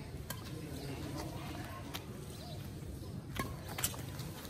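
Badminton rackets striking a shuttlecock during a rally: a sharp hit about a third of a second in, then two quicker, louder hits near the end, over a low steady outdoor background.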